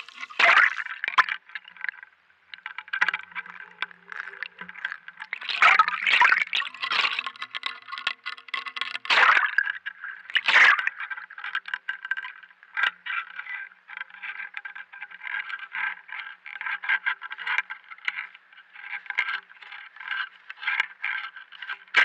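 Irregular crackling and clicking with a few louder scrapes, picked up underwater by a camera in its waterproof housing.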